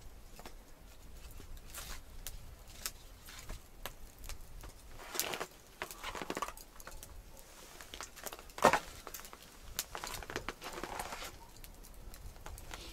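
Wood campfire crackling, with irregular sharp pops and one louder crack about two-thirds of the way through, mixed with brief rustling of things being handled.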